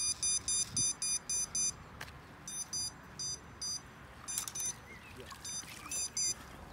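Electronic beeper sounding rapid high-pitched beeps, about four a second, in three bursts that stop and start.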